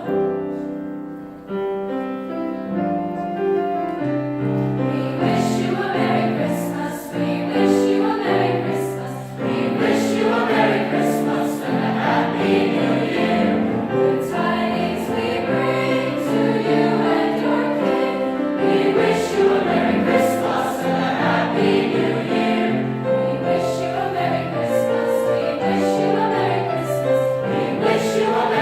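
A high school choir singing Christmas music in several parts, with held notes. A light, regular percussion beat joins about five seconds in.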